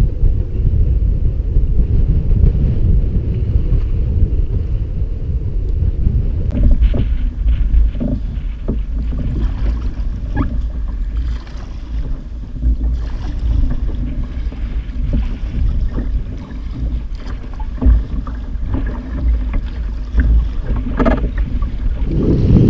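Strong wind buffeting the microphone over rough water, with short splashes and knocks starting about six or seven seconds in as a kayak is paddled through choppy sea.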